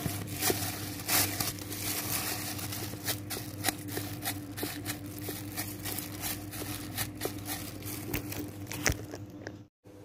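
Hands kneading and squeezing sticky glutinous rice flour dough in a plastic basin: irregular squishing and crackling with many small sharp clicks, over a steady low hum.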